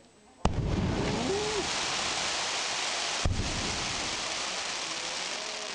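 Aerial firework shell bursting overhead with a sharp bang about half a second in, followed by a long, dense crackle of crackling stars falling, like heavy rain. A second bang about three seconds in; the crackle dies away near the end.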